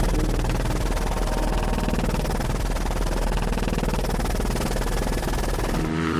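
Helicopter in flight, heard from inside the cabin: a rapid, steady rotor chop over a deep engine drone, cutting off abruptly near the end.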